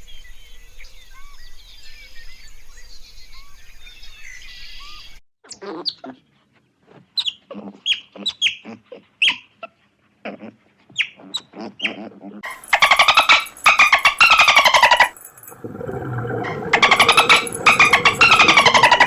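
Animal calls in three parts: a chorus of small bird chirps, then a string of short, sharp calls sweeping in pitch, then two loud, buzzy calls, each lasting about two and a half seconds.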